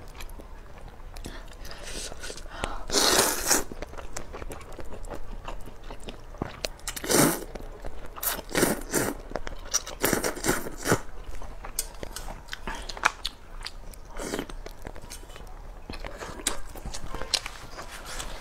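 Eating thick rice noodles from hot spicy broth with chopsticks: several loud slurps, a few seconds apart, with wet chewing and small mouth clicks between them.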